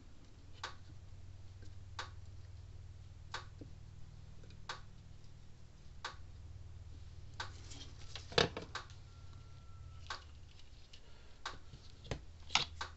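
Quiet bench work during soldering: a steady low hum with a soft, regular click about every second and a half. A louder knock comes about two-thirds of the way through, and a few more knocks near the end as a solder spool and tools are handled.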